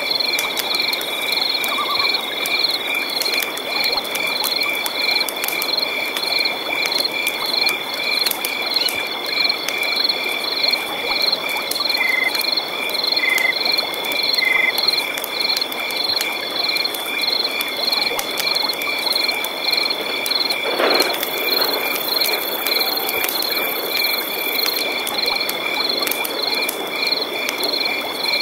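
Night-time forest ambience: insects trilling in one steady high note while frogs and insects repeat a pulsing call about two to three times a second, over an even hiss of flowing river water. A few short chirps come near the middle, and a brief lower call sounds about three quarters of the way through.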